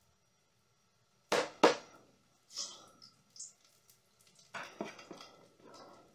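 A spoon knocks sharply twice on kitchenware, each knock ringing briefly. Short high hisses follow, then a run of lighter clicks and scrapes.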